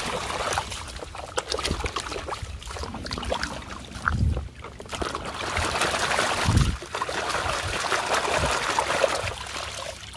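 Water splashing and sloshing in a plastic basin as a hand scrubs a plastic toy truck under the surface, in uneven bursts that die down near the end.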